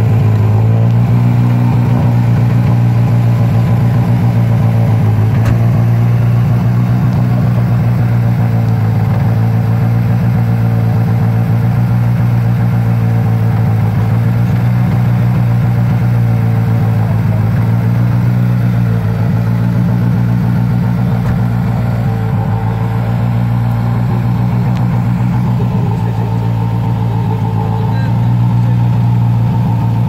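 Skoda Fabia R5 rally car's turbocharged 1.6-litre four-cylinder engine running steadily with the car standing still, a deep even note with no revving.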